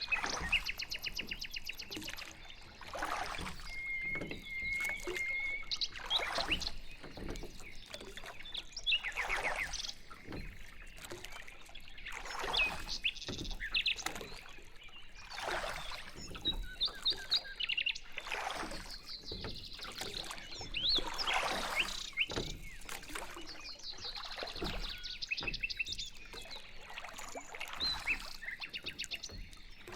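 Water swishing and splashing as a small boat is paddled along, about one stroke every three seconds, with small birds chirping and trilling between the strokes.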